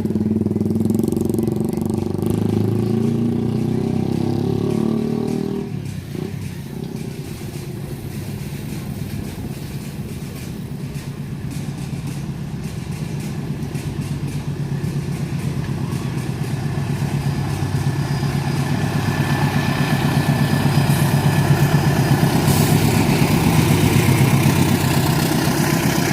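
A loud engine drone cuts off abruptly about six seconds in. It is followed by the low, even throb of a CC 206 diesel locomotive's engine, which grows steadily louder as it approaches.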